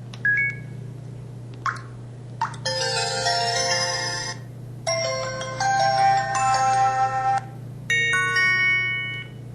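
An MS250 mobile phone's built-in sound effects played through its small speaker one after another: a short two-note beep, a click, then three short melodic ringtone-style jingles.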